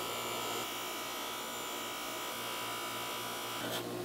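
Bench grinder motor running steadily with a Scotch-Brite buffing wheel, a cast bronze nut held against the spinning wheel to buff it; a steady buzz.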